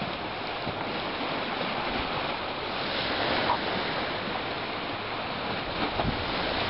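Steady wash of lake waves with wind, the wind buffeting the microphone.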